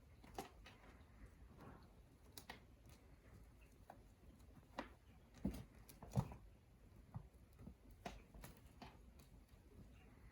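Kittens playing on a floor: scattered soft paw taps and thumps as they scamper and pounce, with a couple of louder thumps around the middle.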